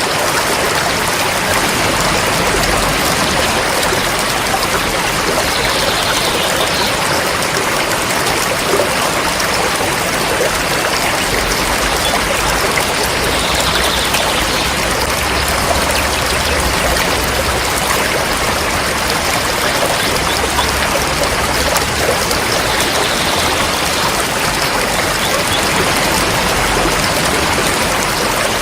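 River water flowing steadily, a continuous even rush of a stream.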